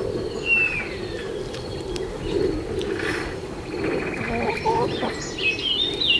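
Countryside ambience of several songbirds calling over a steady low background murmur. There is a falling whistle about half a second in, quick trilled notes twice in the middle, and a run of stepped chirps near the end.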